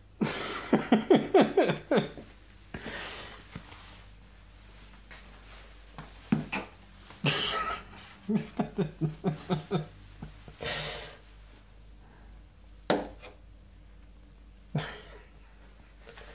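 A person's stifled, breathy laughter in quick pulses, twice: near the start and again about halfway through. A few sharp, short knocks stand out between and after the laughs.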